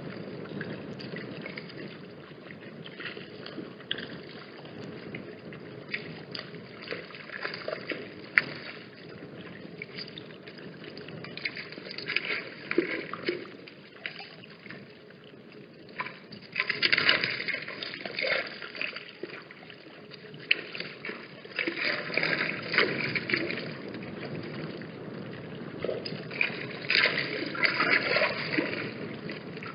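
Wind buffeting the microphone: a continuous rushing noise that swells in louder gusts about every five seconds.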